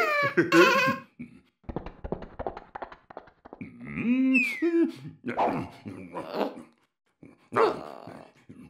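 Wordless cartoon voice sounds, animal-like: a pitched call at the start, a run of light quick clicks for about two seconds, then a wavering call with a falling whistle about four seconds in, and more short calls near the end.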